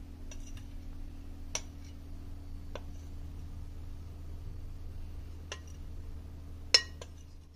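A metal fork scraping and tapping against a glass mixing bowl as batter is scraped out into small glass bowls: about six sharp clicks spread out, with one ringing clink near the end the loudest. A steady low hum runs underneath.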